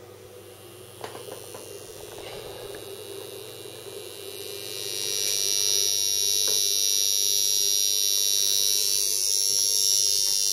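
Inductor under test in a home-built saturation current tester, buzzing with a high-pitched whine as about 30 amps is pulsed through it. It grows from faint to loud over the first five seconds, then holds steady. The builder puts the noise down to the inductor's holder clips resonating.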